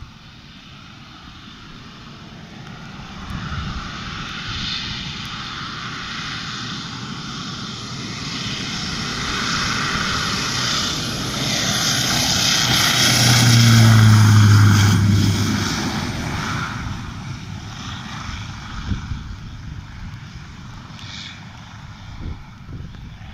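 Single-engine turboprop airplane taking off. Its engine and propeller noise grows as it accelerates down the runway, is loudest with a deep hum as it passes a little past halfway through, then fades as it climbs away.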